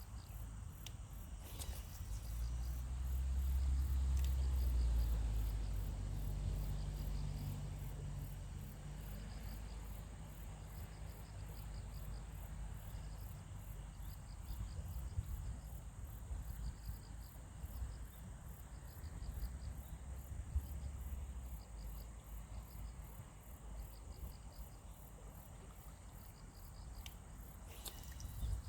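Crickets and other insects chirping: short trains of rapid high chirps over a steady, evenly pulsing high buzz. A low rumble swells a couple of seconds in and fades away by about nine seconds.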